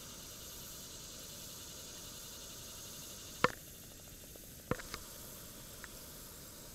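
Steady high hiss, broken by a few sharp clicks and knocks from fishing tackle being handled in a plastic kayak. The loudest comes about three and a half seconds in, two more follow close together just before five seconds, and a faint one near six.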